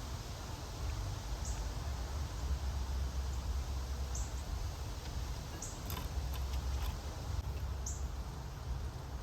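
A small bird giving a short, high, thin call that drops in pitch, repeated about every two seconds, over a steady low rumble. A few faint clicks near the middle.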